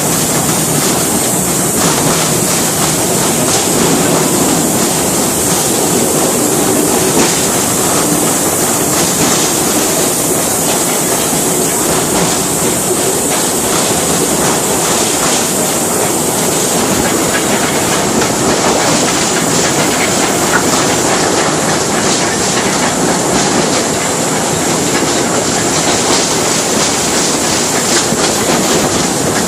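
Ballyhooley Railway's narrow-gauge train running steadily along the track, a continuous rumble with the wheels clicking over the rail joints.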